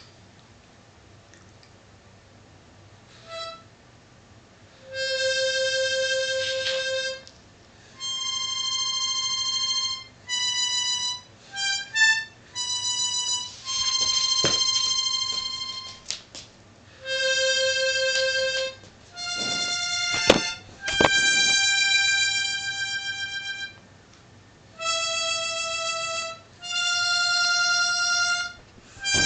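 Harmonica played badly: long held notes and chords of about two seconds each, broken by short pauses and a few quick short notes. The first few seconds are quiet. Two sharp clicks come about twenty seconds in.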